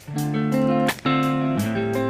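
Background music: a strummed guitar playing held chords, with a new strum about once a second.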